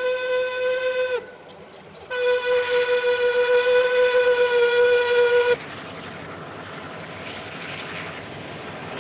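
A locomotive horn on a rotary snowplow train sounds two long blasts on one steady note, the second longer and louder. After the second blast a steady rushing noise goes on.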